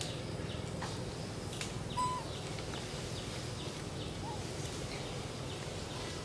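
Birds chirping in forest: a string of short falling chirps, about three a second, over a steady low background hum, with one brief clear call about two seconds in.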